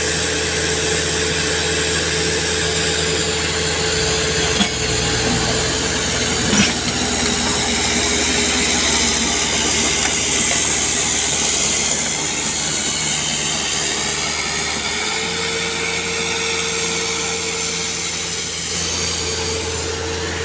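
Diesel engines of an excavator and a loaded Mitsubishi Canter truck running hard under load while the excavator's bucket pushes the truck up a muddy slope. The engine note shifts a few times as the load changes, and there are two short knocks about five and seven seconds in.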